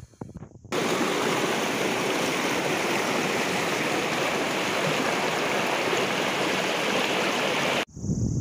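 Mountain stream rushing and splashing over rocks, a loud, steady rush of water that cuts in abruptly about a second in and cuts off suddenly near the end.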